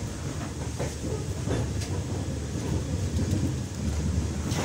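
Passenger train coach running along the track: a steady low rumble with a few sharp wheel clicks over rail joints, the loudest near the end.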